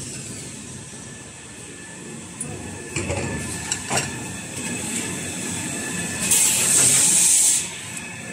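Automatic toilet paper rewinder line running: a steady mechanical hum with a couple of faint tones, sharp clicks about three and four seconds in, and a loud hiss lasting about a second, starting a little over six seconds in.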